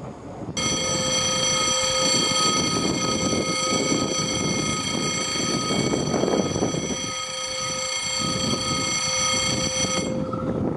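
SNCF Z-TER regional electric train approaching and sounding a long, steady horn that starts about half a second in and cuts off abruptly near the end, over the rumble of the train.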